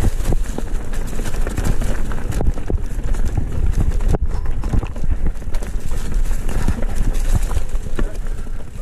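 Mountain bike rattling over rocks and leaf litter: tyres, chain and frame knocking continuously and unevenly, with a low rumble underneath and one sharper knock about four seconds in.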